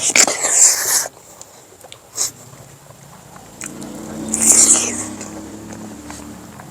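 A person eating noisily: wet chewing and slurping bursts, loudest in the first second and again around the middle, with a short click in between.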